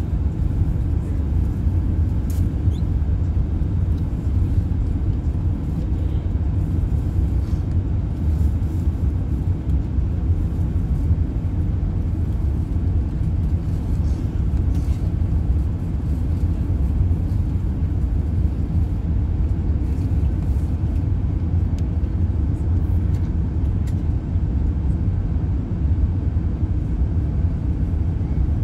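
Steady low rumble inside the cabin of an Airbus A380 climbing out after takeoff: its four Rolls-Royce Trent 900 engines at climb power and the rush of air along the fuselage.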